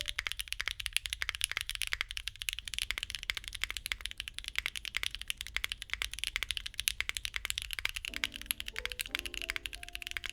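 Continuous fast typing on a custom mechanical keyboard with Bsun tactile switches: a Neo60 Core with a carbon fibre plate, no foam and GMK keycaps, giving a dense stream of keystroke clacks. Background music plays underneath, and its melody comes back in about eight seconds in.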